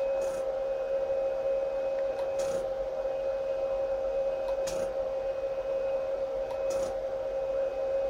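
NEMA 17 stepper motor of a DIY CNC laser engraver giving a steady high-pitched whine. Four faint clicks come about two seconds apart.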